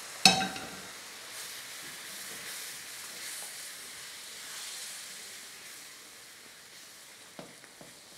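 Hot sugar syrup sizzling in ghee-roasted gram flour (besan) in a frying pan as a silicone spatula stirs it, the hiss slowly fading. A ringing metal clank just after the start as the syrup saucepan is set down on the stove, and a few light spatula scrapes near the end.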